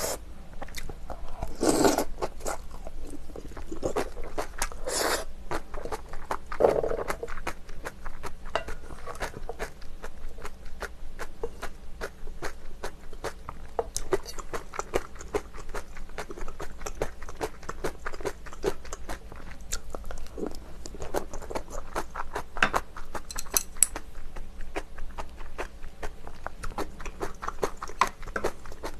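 Close-miked chewing and wet mouth sounds of someone eating ramen soup with rice from a wooden spoon, a dense run of small clicks throughout, with a few louder slurps about 2, 5 and 7 seconds in.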